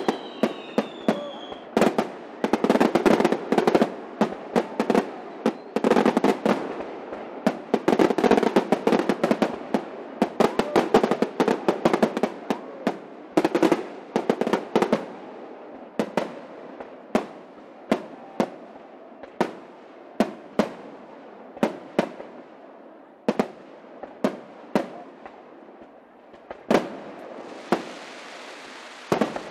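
Aerial fireworks display: rapid volleys of shell bursts with dense crackling for about the first fifteen seconds, then separate bangs about a second apart.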